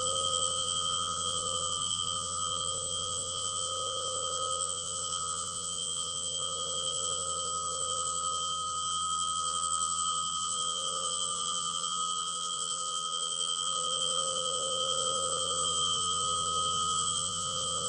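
A picture's raw data played back as audio (databending): several steady held tones over an even hiss, unchanging throughout.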